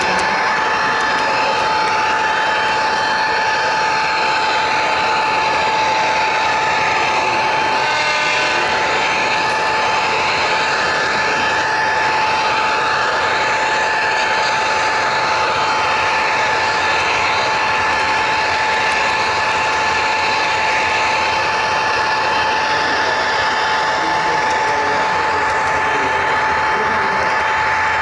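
HO scale model train running along the track, a steady rolling noise of wheels on rail with a constant high whine.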